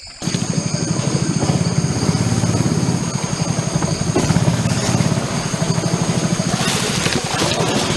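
Small boat motor running steadily at an even speed, a low rapid pulsing that comes in suddenly right at the start.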